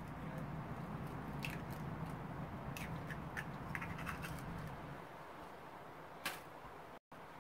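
Faint clicks and crackles of eggshells being handled over a bowl, under a low steady hum that fades about five seconds in. A sharper single knock comes about six seconds in.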